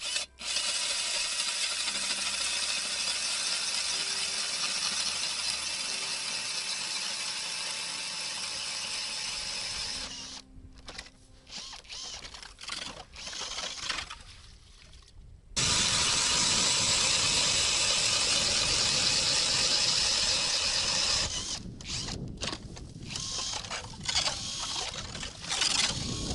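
Cordless drill driving an ice auger, boring a hole through lake ice: a steady motor whine with the grinding of the auger in the ice. It runs for about ten seconds, stops and starts in short bursts, runs again for several seconds with a deeper grind, then ends in more short bursts.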